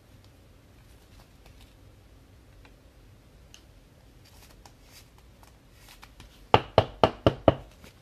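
Faint handling rustles and light clicks, then a quick run of five sharp knocks about a quarter second apart near the end.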